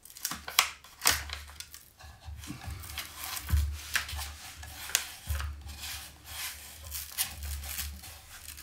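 Backing film being peeled off a self-adhesive hook-and-loop sanding pad as the pad is pressed and rubbed down onto a sanding disc. It makes irregular crackling, tearing and rubbing noises with short clicks.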